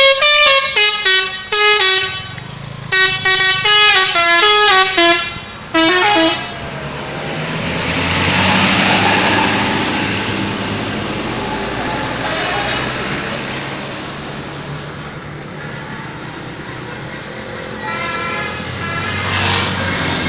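Telolet bus horn, a multi-tone musical air horn, playing a fast tune of stepped notes for about the first six seconds. Then the low running of a bus engine and road noise swells and fades, and a fainter horn tune comes in near the end.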